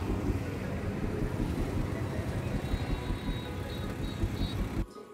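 Engine and road noise from inside a moving auto-rickshaw in traffic, under background music with a steady beat. The road noise cuts off suddenly near the end, leaving only the music.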